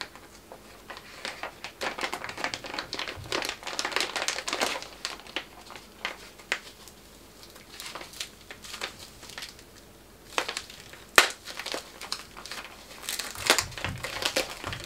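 Thin plastic packaging bag and foam wrap crinkling and crackling in the hands as the bag is opened and its contents unwrapped: busy crinkling for the first few seconds, a quieter spell, one sharp crack about eleven seconds in, then more crinkling near the end.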